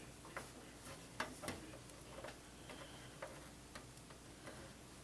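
Faint, irregular small clicks and taps of plastic cable connectors and wires being handled inside a desktop computer case, about nine clicks spread unevenly over the few seconds.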